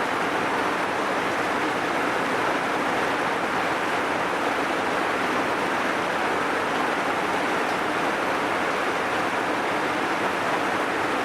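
Heavy rain falling: a steady, even hiss of water.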